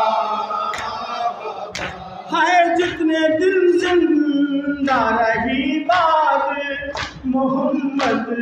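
Male voice singing a noha (Shia lament) unaccompanied into a microphone, with a group of men chanting along. Sharp chest-beating slaps (matam) fall roughly once a second.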